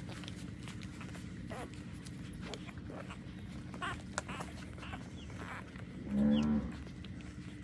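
Newborn puppies giving faint, short squeaks while nursing. About six seconds in, one short, low animal call.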